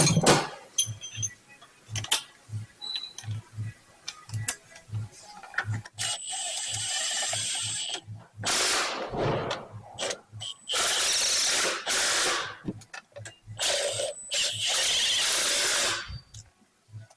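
A power ratchet fitted with a 15 mm socket on a long extension runs in several bursts of one to two seconds each, running down the engine mount bolts. Light clicks and clinks of the tools come before the first burst.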